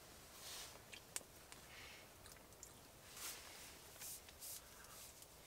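Near silence, with a few faint, short hissy rustles and one small click about a second in.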